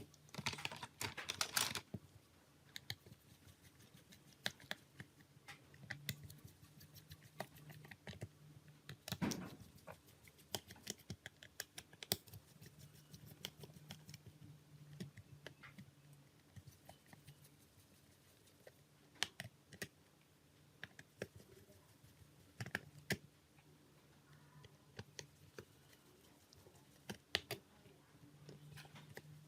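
Irregular small clicks and taps, with a few louder clusters, of hand tools and small parts being handled while an old Nokia E71 phone is worked on.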